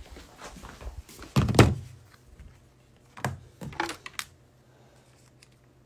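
Handling noise from a phone being moved and propped in place: a heavy thump about a second and a half in, then a few lighter knocks.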